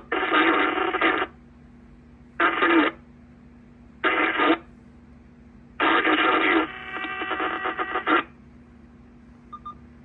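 Uniden SDS200 scanner's speaker putting out four bursts of received radio audio, with a faint steady hum and hiss between them. The scanner has a sizzle noise after being on for a few hours.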